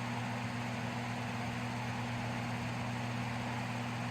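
A steady low hum over a constant hiss, with nothing else happening: room tone.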